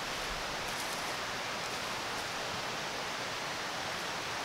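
Steady rushing of a nearby river, even and unbroken, with a few faint light clicks over it.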